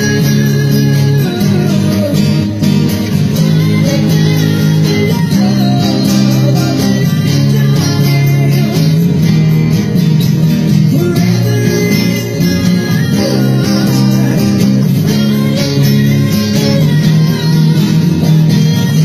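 Acoustic guitar playing a slow ballad continuously, an instrumental passage of the song.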